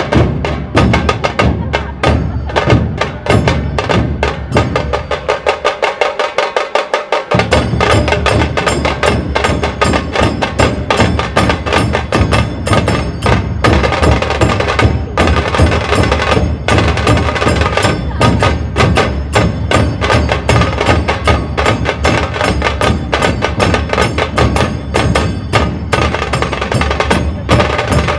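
Dhol tasha ensemble playing: deep dhol barrel drums under sharp tasha drum strokes in a fast, dense rhythm. About four seconds in, the dhols drop out for a short rapid run of tasha strokes alone, then the full ensemble comes crashing back in about three seconds later.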